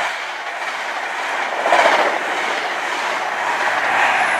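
High Speed Train's Mark 3 passenger coaches running past close by at speed: a steady rushing noise of wheels on rail, swelling briefly about two seconds in.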